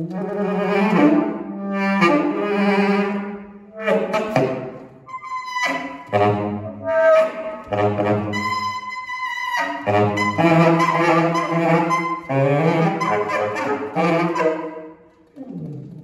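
Solo tenor saxophone playing loud phrases in a contemporary style, with low notes and a few thin, high held tones, broken by short pauses. It dies away near the end.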